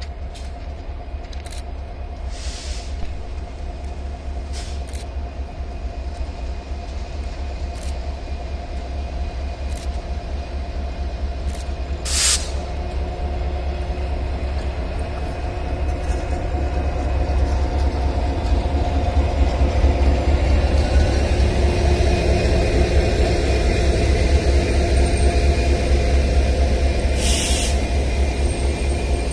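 Diesel locomotive running light, its engine rumbling and growing louder as it approaches, then staying loud as it passes close by. A few sharp clicks are heard, the loudest about twelve seconds in, and there is a short hiss near the end.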